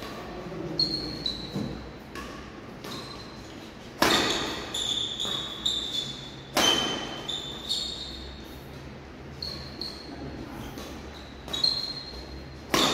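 Badminton racket strikes on a shuttlecock during a rally, a sharp crack every couple of seconds, the loudest about 4 s in, at 6.6 s and near the end, echoing in a large hall. Short high squeaks from shoes on the court mat run between the strikes.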